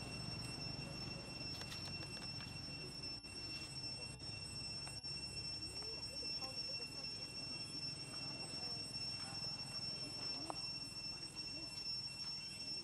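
Steady, high-pitched drone of forest insects, held at an even pitch without a break.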